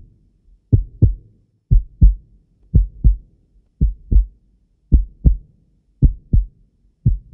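A slow heartbeat: low double thumps (lub-dub), the pairs repeating just under once a second, about seven beats in all.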